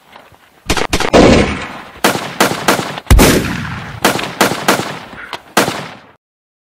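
Rapid gunfire sound effect: about fifteen loud gunshots in uneven clusters, each with an echoing tail and one heavier boom about three seconds in. It cuts off suddenly about six seconds in.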